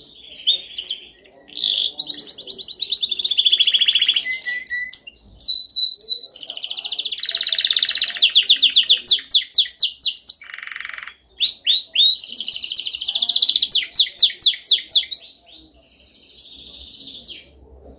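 Domestic canary singing: phrases of very fast trills and rolls of repeated notes, broken by short pauses, with a held whistled note about a third of the way through. The song trails off into quieter notes near the end.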